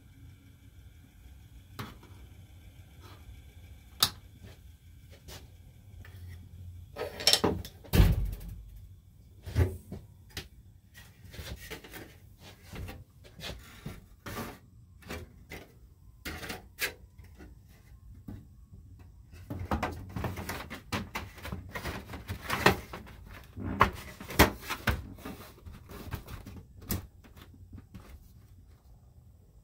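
White plastic interior trim around an RV roof vent fan being handled and pushed into the ceiling opening: irregular knocks, taps and plastic rubbing. The loudest knocks come about seven to eight seconds in, and a dense run of them comes from about twenty to twenty-five seconds in.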